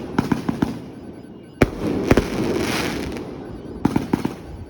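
Fireworks going off: small quick pops early on, a sharp bang about a second and a half in followed by a long hissing crackle, and another cluster of pops near the end.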